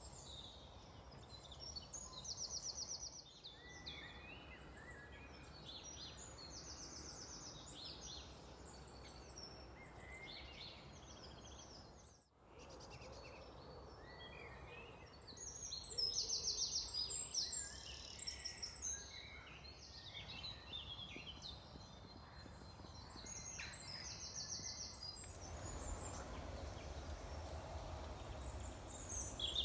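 Songbirds singing outdoors, several overlapping songs of short high chirps and fast trills repeating every few seconds, over a faint low background rumble.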